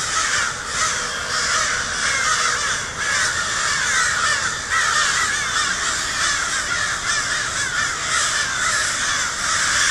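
A large flock of crows cawing continuously, many birds calling over one another in a constant racket.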